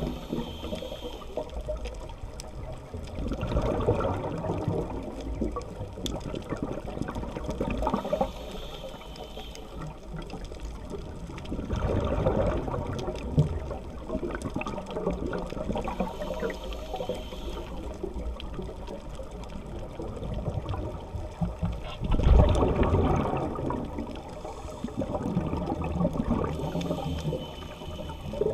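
A scuba diver breathing through a regulator, heard underwater. Several breaths, each a thin hiss on the inhale and a rush of exhaled bubbles that swells and fades every few seconds.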